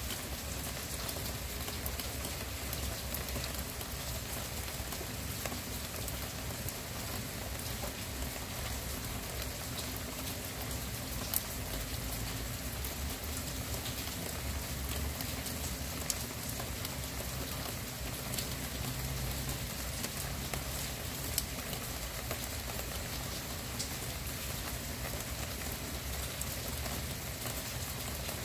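Steady rain falling, an even hiss with scattered drops ticking through it and a few slightly louder single drops.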